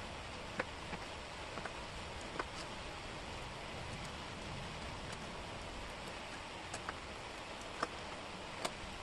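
Small wooden jigsaw puzzle pieces clicking and tapping lightly as they are handled and fitted into place, several sparse clicks over a steady hiss.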